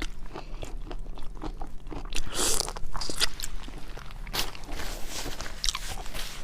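Close-miked eating sounds of seafood: biting and crunching with chewing, in a series of short crackles and clicks, with a louder burst of crunching about two seconds in.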